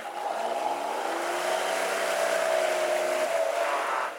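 SUV engine revving hard under load in deep mud, wheels churning. The revs climb in the first half second, hold high with a slight rise, then drop off near the end.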